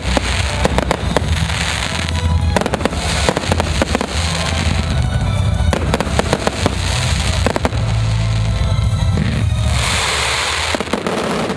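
Consumer fireworks going off in quick succession: dense sharp bangs and shell bursts, with crackling between them.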